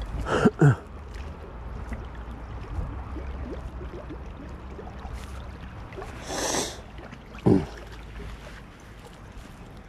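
Choppy, wind-driven lake water lapping and slapping at the shore, with two sharp slaps about half a second in, a short splashy hiss a little after six seconds and another slap near the end, over a low wind rumble on the microphone.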